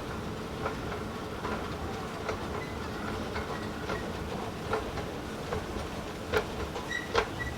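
Schindler escalator running with a steady hum and a regular sharp clack about every 0.8 seconds, the loudest ones near the end, with a faint squeak. It is an abnormal noise that the rider takes for a possible fault.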